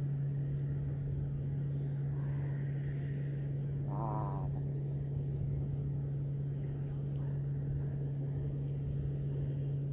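A steady low mechanical hum, like an engine running, holding one even pitch throughout. About four seconds in there is a brief warbling call.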